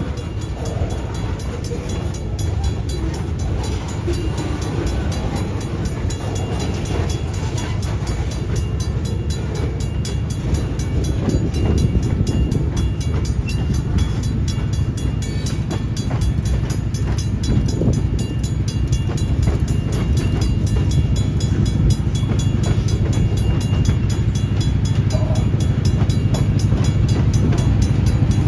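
EMD GP38-2 diesel-electric locomotives running as the train moves, a steady low engine rumble growing gradually louder. The lead unit has a bad fuel pump and cannot hold amperage under load, so the trailing unit is doing the work, shoving from behind.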